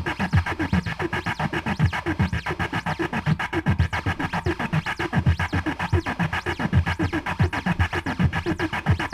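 Experimental electronic music track: a fast, throbbing pulse of low thuds, each dropping in pitch, about three to four a second, over a steady hiss with faint held tones.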